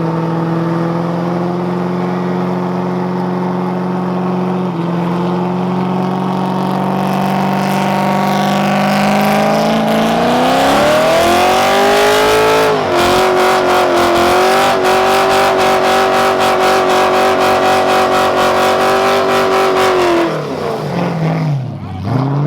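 Mustang engine held at high revs during a burnout. About ten seconds in it climbs to a higher pitch and holds there with a fast, regular stutter, then drops off near the end.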